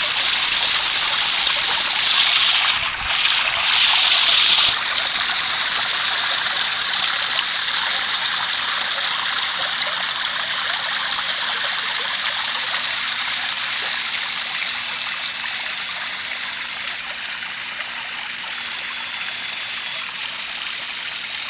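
Water running steadily with a constant rushing hiss. It dulls briefly about three seconds in and eases slightly toward the end.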